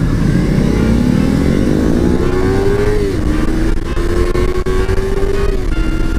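Kawasaki Ninja sport bike's engine accelerating away: the note climbs for about three seconds, drops as the rider shifts up, then holds nearly steady with another shift near the end. Wind rushes over the helmet-mounted microphone underneath.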